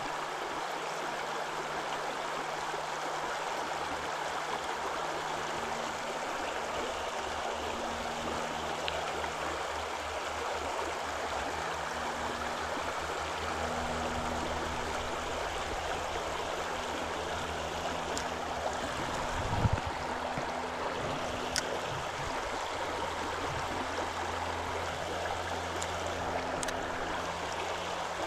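Shallow river riffle running over rocks: a steady rush of flowing water. A single low thump about two-thirds of the way through.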